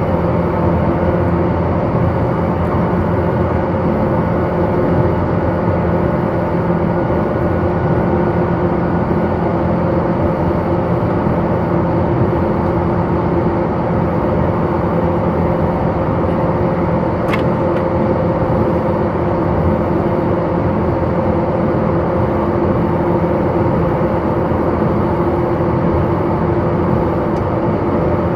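A JR 185 series electric train running at steady speed, heard inside the passenger car: a constant rumble of wheels on rail with a few steady humming tones under it. There is one sharp click a little past the middle.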